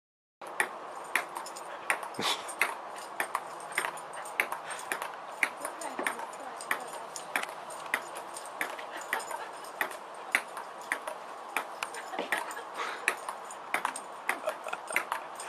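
Ping-pong ball bouncing on a table-tennis table: a run of sharp clicks, unevenly spaced at about two to three a second, over a steady hiss.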